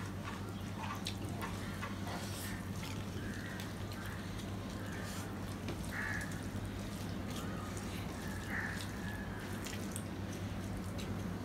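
Wet eating sounds: mouths chewing and smacking, and fingers mixing and squeezing rice and curry on steel plates, as many small irregular clicks and squelches over a steady low hum.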